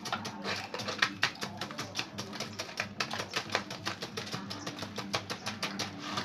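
Quick, uneven clicks and scrapes, several a second, of a paddle working freezing ice cream against the metal canister of a hand-turned sorbetes freezer. Guitar music plays under it.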